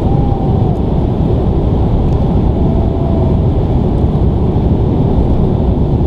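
Airplane cabin noise in flight: a loud, steady rumble of engines and rushing air heard from inside the cabin.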